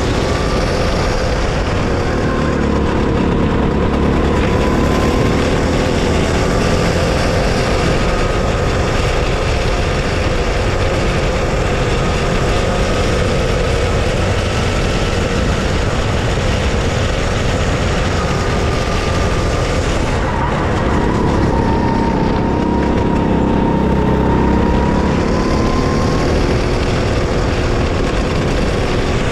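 Go-kart engine at racing speed, its pitch rising and falling with the throttle. It drops about twenty seconds in, then climbs again.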